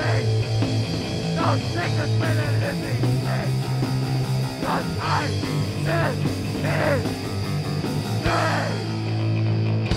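Oldschool hardcore punk music from a band's demo recording, playing loud and without a break.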